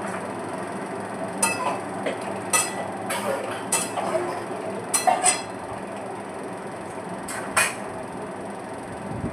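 A steady rumbling background noise, with about eight sharp clinks at uneven intervals, several close together as pairs.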